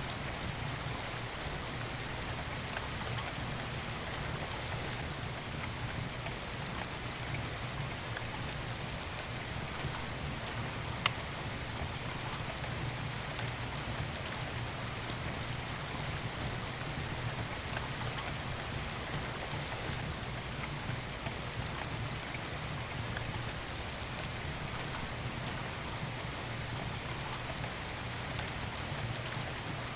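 Steady rain falling, mixed with the occasional crackle of a wood fire; one sharp pop stands out about eleven seconds in.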